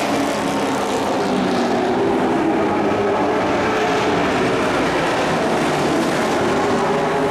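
Dirt-track race truck engine running hard around the oval, a loud, steady drone with no break.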